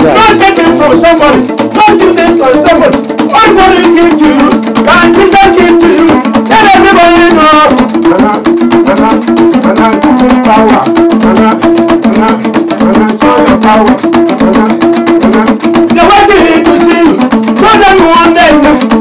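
Loud music with a steady, busy percussion beat.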